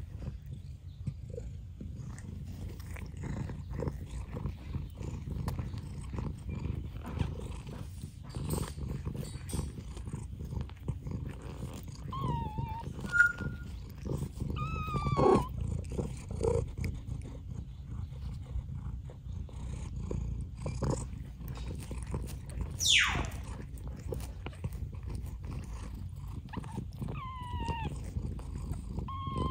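A cat purring steadily, with small clicking sounds of a kitten eating and a few short high-pitched kitten mews, including one quick falling squeak about two-thirds of the way through.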